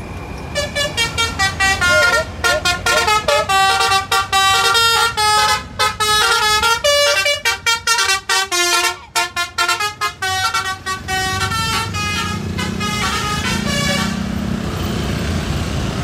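Bus telolet horn, a Basuri multi-tone horn driven by a DAV module, playing a fast jingling melody of short chopped notes that hop in pitch. It stops about two seconds before the end, leaving a steady vehicle engine hum.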